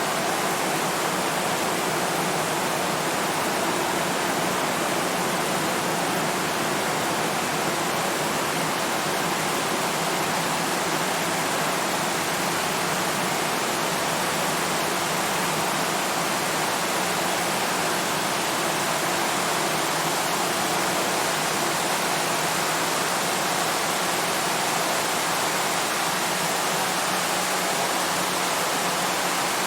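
Rain falling steadily on a tin roof, an even hiss with no pauses or separate hits standing out.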